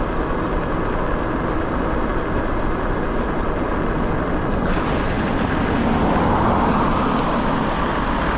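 Steady wind and road rush of an electric bike ridden along a road, picked up by a GoPro microphone. About six seconds in, a car passes, its sound swelling and then fading.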